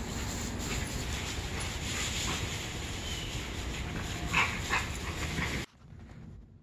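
Two dogs playing rough on a lawn, one giving two short yips about four seconds in, over a steady outdoor hiss. The outdoor sound cuts off abruptly near the end, leaving it much quieter.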